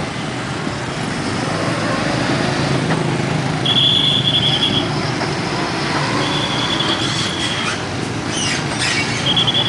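Heavy diesel truck, a UD Quester tractor unit with a loaded dump semi-trailer, rolling slowly past amid motorcycle traffic, its engine and tyres making a steady rumble. Three brief high-pitched squeals sound over it, each about a second long.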